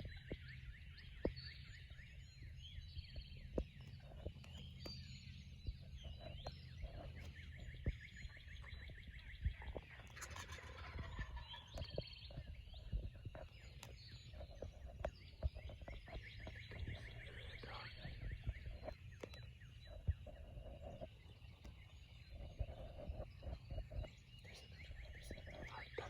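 A wild turkey gobbling among the calls of other birds at dawn, over a low rumble, with scattered sharp clicks.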